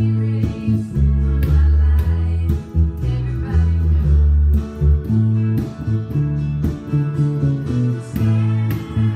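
Fender Precision electric bass playing a line in the key of A, the low notes changing about twice a second, along with a country-pop band recording with drums, guitar and a singer.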